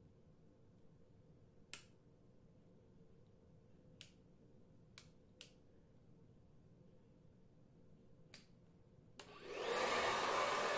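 A few sharp clicks as the switch on a hand-held hair dryer is worked, then near the end the hair dryer starts up and blows with a loud, steady rush of air.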